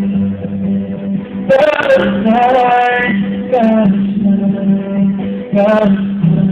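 A live song: acoustic guitar playing under a male voice singing a few drawn-out notes.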